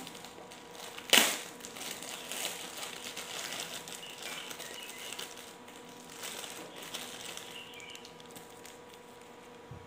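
Thin plastic bag crinkling and rustling as it is opened and a bread roll is pulled out, with one sharp, loud crackle about a second in.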